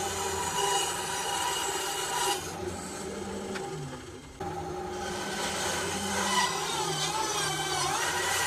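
Benchtop bandsaw cutting a curve in a piece of laminate flooring: the blade rasps through the board over the steady hum of the motor. The cutting noise drops away for about two seconds midway, then resumes.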